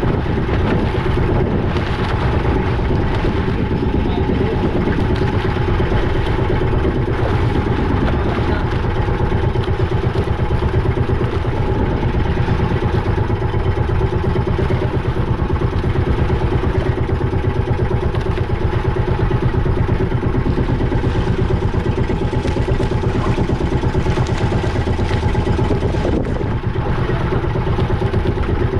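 Boat engine running steadily at an even speed, with a fast, regular throb.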